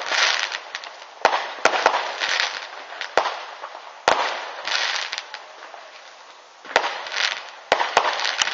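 Aerial fireworks going off: sharp bangs of bursting shells at uneven intervals, three in quick succession about two seconds in and three more near the end. Crackling sparkle follows many of the bangs.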